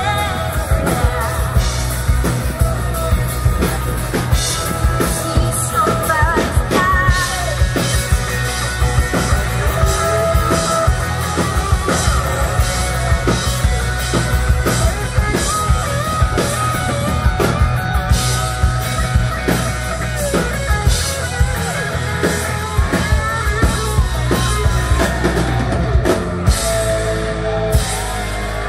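Live band performance: a woman sings over strummed acoustic guitar, electric guitar and a drum kit playing a steady rock beat, heard through the outdoor PA.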